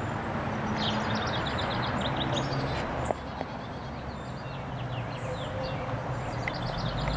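Small birds chirping in quick runs of repeated high notes, twice, over a steady low background rumble, with a single sharp click about three seconds in.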